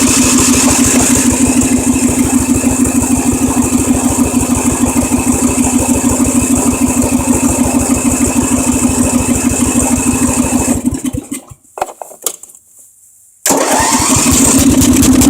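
Craftsman riding mower engine being cranked by its electric starter in a steady pulsing churn for about eleven seconds without catching, then winding down. After a short pause it is cranked again near the end. The engine won't start even though it has fuel.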